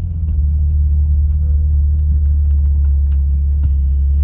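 Jeep Cherokee engine running with a steady low rumble and a few faint, irregular ticks over it. The owner takes the ticking for the EVAP purge canister valve clicking as it activates.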